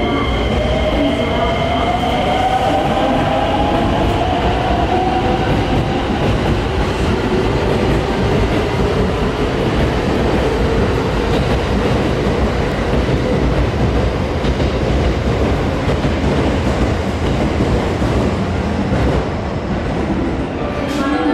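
Electric commuter train running in along the platform: a steady rumble of wheels and motors, a high squeal in the first two seconds, and a motor whine that climbs slowly in pitch before settling.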